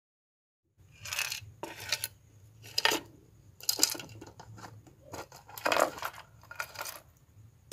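Small electronic components being handled and set down on a wooden table: about eight short clinks and rattles, roughly a second apart, starting about a second in. A faint low hum runs underneath.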